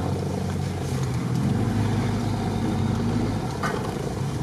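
Engine and running gear of an off-road 4x4 driving slowly over a bumpy dirt track, heard from inside the cabin as a steady low hum with road rumble. A short knock comes near the end.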